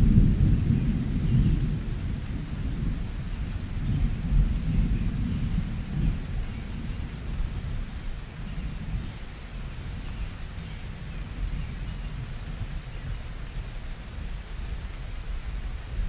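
Low, uneven rumbling noise, loudest at the start and easing off over the first couple of seconds, then swelling again about four and six seconds in.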